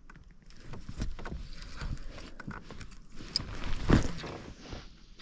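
Light knocks and clicks of fishing gear being handled aboard a kayak: rod and spinning reel being worked, with the loudest knock about four seconds in.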